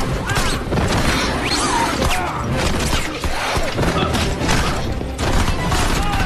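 Busy action-film sound-effects mix of metallic clanking, knocks and crashes, with brief metal squeals and a music score underneath.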